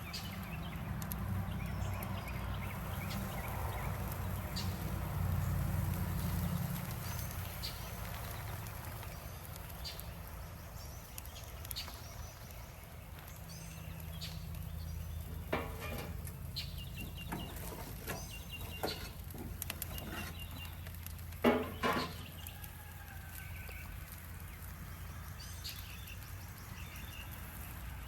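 Chickens clucking, with two loud calls a little past the middle, over a steady low hum.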